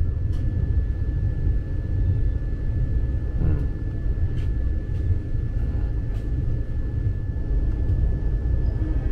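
Vande Bharat Express electric train running: a steady low rumble with a thin constant high tone over it and a few faint clicks.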